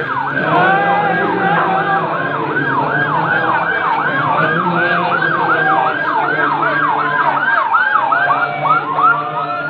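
Emergency-vehicle sirens yelping, with rapid rising-and-falling sweeps about three a second from more than one siren overlapping. Near the end one changes to a slower rising wail.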